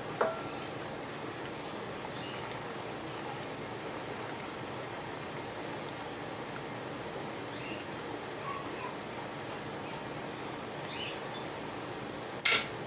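Pot of fish curry simmering on a gas stove, a steady bubbling hiss, with a short click just after the start and a sharp knock near the end.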